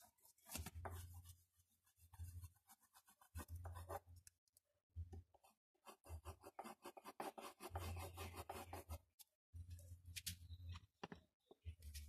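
Fingers rubbing and blending pastel on paper: faint, scratchy strokes in quick runs with short pauses between them.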